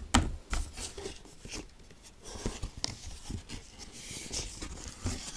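Pages of a picture book being turned and the book handled, with scattered light clicks and rustles; the sharpest click comes right at the start.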